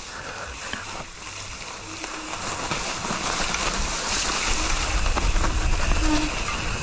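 Wind rushing over an action camera's microphone, with mountain bike tyre noise on a dirt trail. It grows steadily louder and rumblier as the bike picks up speed.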